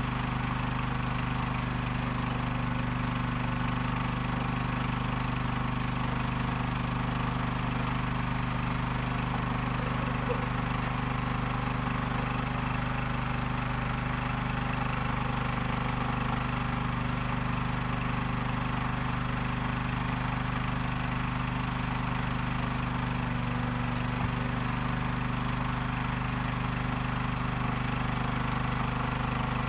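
Robin small petrol engine running steadily at a constant speed, driving a machine that separates gold from sand.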